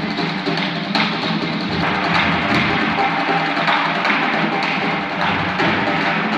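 Live drum line playing a cadence: sharp, woodblock-like stick clicks over drums.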